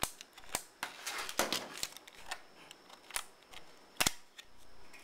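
A series of about eight sharp plastic clicks at uneven spacing, the loudest about four seconds in: the ambidextrous fire selector switch of a JG MK36C airsoft rifle being flipped between positions.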